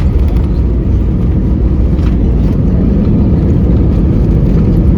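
Steady, loud, low rumble inside the cabin of an Airbus A320-family airliner on the ground after landing: engine and rolling-gear noise.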